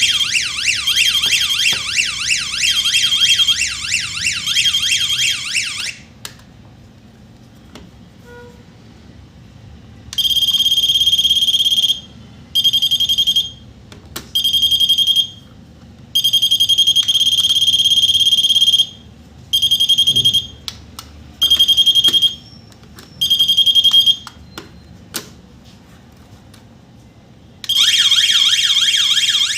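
Electronic alarm siren of a wireless nurse call beacon light: a fast warbling wail for about six seconds, then a pause, then a steady high beep switched on and off about eight times in bursts of uneven length, and the warbling wail starting again near the end.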